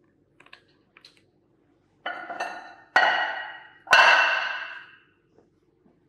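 Steel slotted weights on a direct shear machine's lever-arm weight hanger clanking and ringing as they are taken off. A few faint clicks, then three ringing metal clanks about a second apart, each dying away over about a second.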